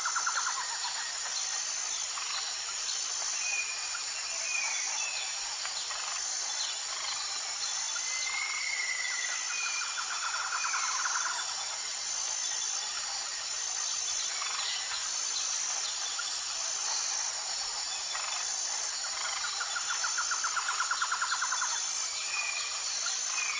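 Outdoor nature sound: a steady high-pitched insect-like chorus throughout, with a rapid pulsed trill that repeats three times, about ten seconds apart, and a few short chirps in between.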